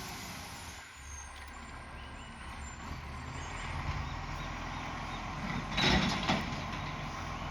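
Garbage truck's diesel engine running with an exhaust leak. A short, loud burst of hiss comes about six seconds in.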